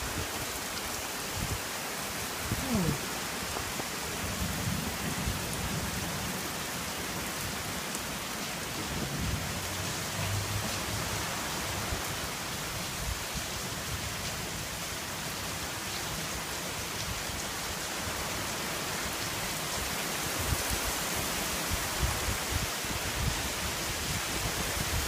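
Steady rain falling in a thunderstorm: a continuous, even hiss of rainfall.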